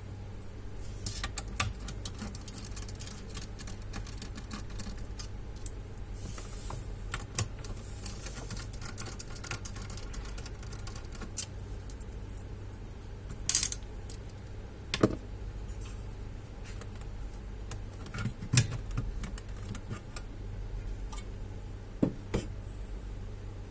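Irregular clicks and taps of small parts being handled while a Dell OptiPlex 5260 all-in-one computer is taken apart: screws, tools and plastic pieces being worked and set down, over a low steady hum.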